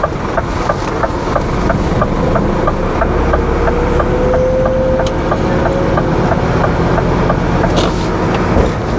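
Lorry diesel engine running under light load as the laden transporter pulls slowly away, heard from inside the cab. A faint whine rises midway through, and a light, even ticking of about five a second runs over the engine sound.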